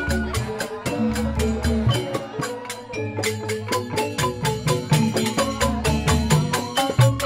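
Joged bumbung gamelan playing: bamboo tube xylophones (grantang) struck in fast, even interlocking patterns over low repeating bass notes.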